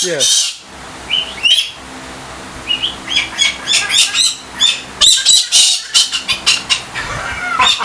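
Pet galah (rose-breasted cockatoo) giving short, high calls in quick runs, with a dense burst in the middle and more calls near the end.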